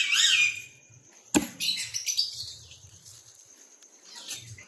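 Caged pet parrots calling with quick, high, rising-and-falling chirps that stop within the first half second. About a second and a half in comes a single sharp knock, then a brief hiss and only faint small knocks.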